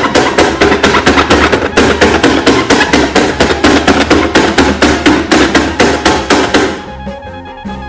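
A fast, loud run of hard knocks, about six a second, stopping about seven seconds in, after which a soft tune of held notes carries on.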